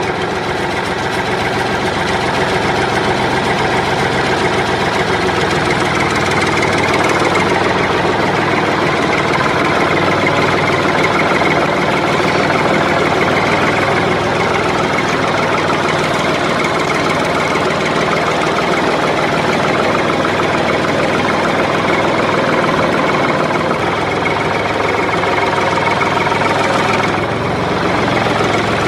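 Engine sound effect: an engine running steadily at idle, with a slight dip near the end.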